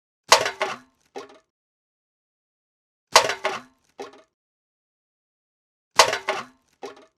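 A can being thrown away, landing with a clatter and a quick rattle, then a smaller knock under a second later. This happens three times, about three seconds apart.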